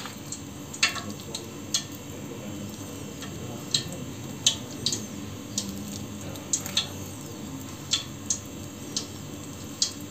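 Metal spoon stirring and scooping thick mashed-banana batter in a bowl, giving irregular sharp clicks and scrapes against the bowl's side, over a faint steady low hiss.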